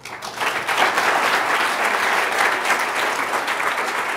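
Audience applauding, many hands clapping, building up quickly at the start and then holding steady.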